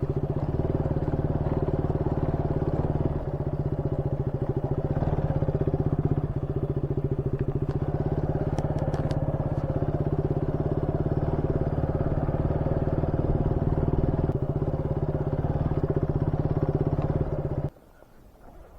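Motorcycle engine running at a steady, even pace with a rapid firing pulse, cutting off suddenly near the end.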